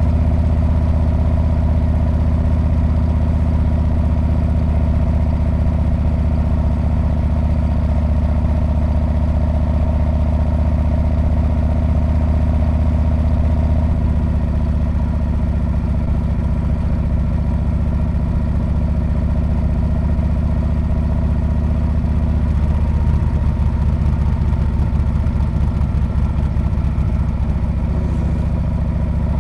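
Harley-Davidson Street Bob's V-twin engine and exhaust running steadily as the motorcycle is ridden. Its low note shifts about halfway through and turns rougher and more uneven over the last several seconds.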